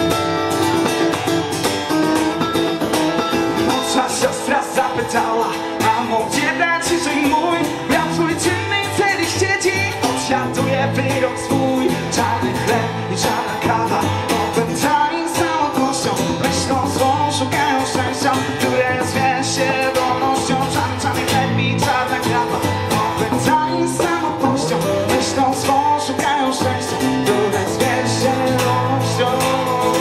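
Live electric and acoustic guitar playing an instrumental passage of a song: the acoustic guitar strums chords while the electric guitar plays wavering lead lines over it.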